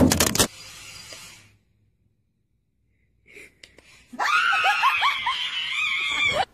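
A couple of loud, sharp cracks at the very start. Then, after a silent gap, a person screams in fright, high-pitched and wavering, for about two seconds before it cuts off abruptly.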